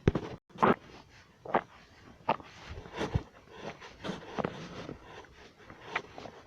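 Stomach growling: a string of short, irregular gurgles, about one or two a second.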